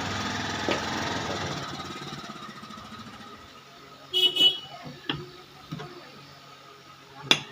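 A steady hum that fades away over the first three seconds. About four seconds in comes a short, high, horn-like toot, the loudest sound, followed by a few scattered clicks and knocks.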